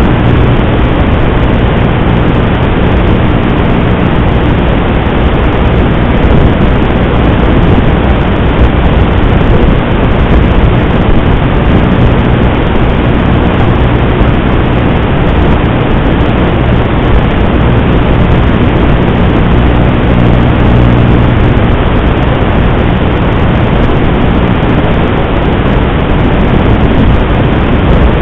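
FPV racing quadcopter in fast flight: its motors and propellers make a loud, steady rushing noise with a low hum that comes and goes. The sound is picked up through the drone's analog video-link audio.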